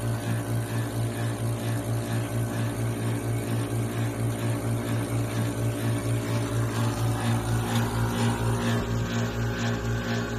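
Slot die film coater running: a steady low machine hum with an even pulsing underneath, from its motor-driven syringe pump and built-in vacuum pump working during a coating run.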